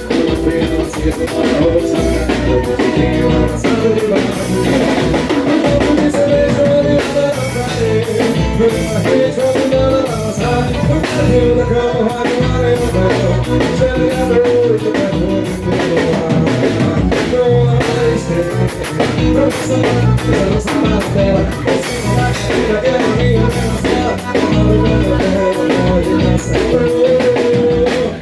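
Upbeat Portuguese-language song with drum kit, guitar and singing, played loudly and continuously.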